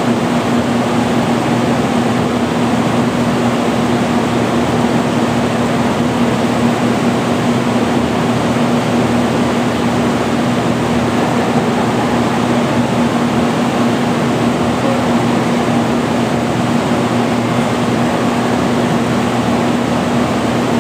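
Steady machinery hum: a constant low tone over an even hiss, unchanging in level or pitch throughout.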